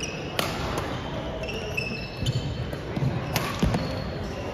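Badminton rally on a wooden gym court: sharp cracks of rackets hitting the shuttlecock, short high squeaks of court shoes and thudding footsteps on the floor.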